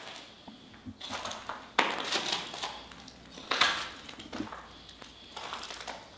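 Irregular scuffing and crunching footsteps on a debris-strewn floor, in uneven bursts, the loudest about two and three and a half seconds in.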